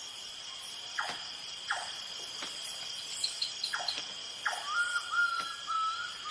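Night insect chorus of crickets giving a steady high trill, with a few short calls that sweep down in pitch over it. A soft, wavering musical line enters near the end.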